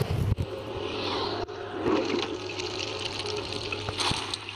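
Water trickling and splashing in a steady rush.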